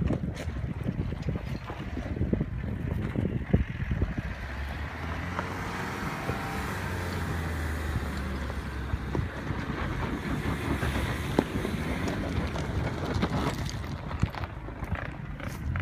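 Suzuki Grand Vitara diesel engine running under load at low speed as the SUV crawls over a steep, rocky dirt track. The engine note rises and falls around the middle, with scattered clicks and crunches from the tyres on loose stones.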